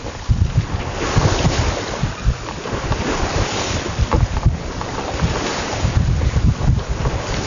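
Wind buffeting the microphone in uneven gusts, over a steady rush of sea water and waves around a sailing boat under way.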